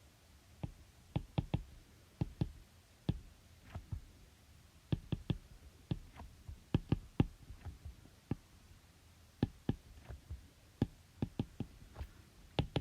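Keys being pressed while a calculation is worked out: a run of irregular, sharp clicks and taps, a few every second.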